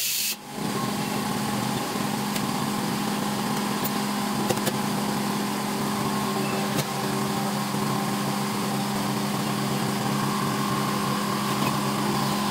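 A loud hiss cuts off at the very start, then a machine motor runs with a steady hum of several fixed tones over a light hiss, with a few faint ticks.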